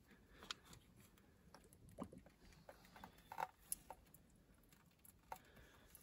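A handful of faint, scattered clicks and taps from a screwdriver working a hose clamp on a tractor heater hose, over near silence.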